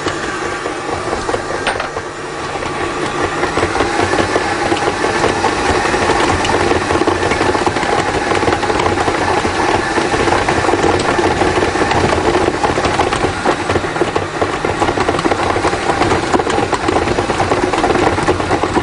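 Electric stand mixer running, kneading bread dough in its steel bowl: a steady motor sound that grows louder between about two and four seconds in, then holds.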